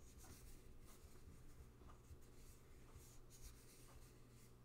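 Near silence with faint, soft rustles of a tarot card being handled and tilted between the fingers, over a low steady hum.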